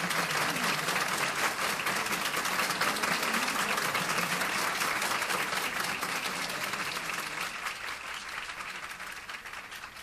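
Audience applauding after a piano recital, the clapping dying away over the last few seconds.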